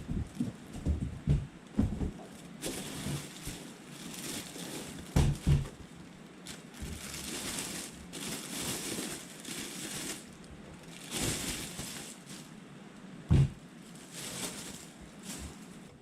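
Rustling and crinkling, like packaging or plastic being handled, in repeated bursts, with several sharp knocks: a cluster in the first two seconds, a pair about five seconds in, and a single loud knock near the end.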